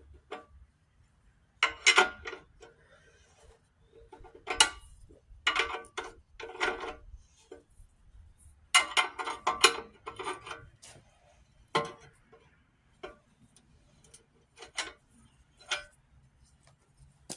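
Steel hand tools, a large wrench and a socket ratchet, working on the bolts of a mini excavator's bucket linkage: irregular metallic clinks and clanks, each ringing briefly.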